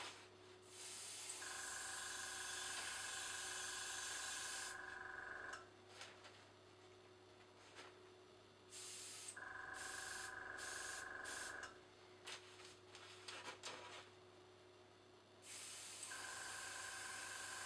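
Dual-action airbrush hissing in spells as it sprays acrylic paint onto fabric, the trigger pressed and released, with short spurts near the middle. A small tankless compressor's motor hums and whines in three stretches, cutting in about a second and a half in, again around the middle, and near the end.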